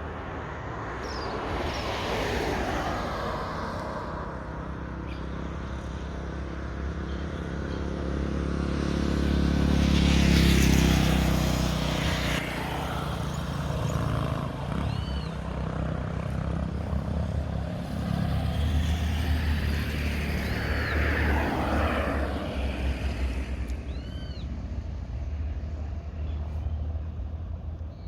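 Road traffic: several vehicles passing one after another over a steady low rumble, the loudest pass-by about ten seconds in.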